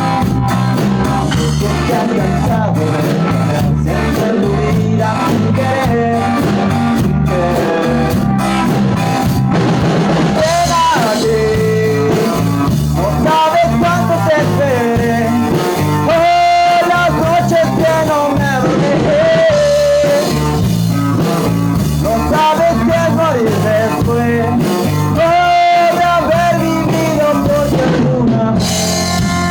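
Rock music playing: guitar and drum kit, with a voice singing from about ten seconds in.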